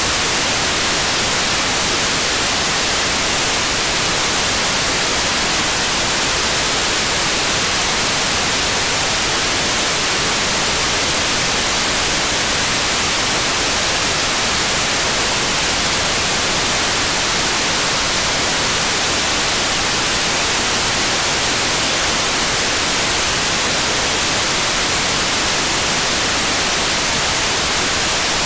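Steady hiss of static from an RTL-SDR receiver's FM-demodulated audio, tuned to 435.7 MHz. The hiss is strongest in the upper range and does not change.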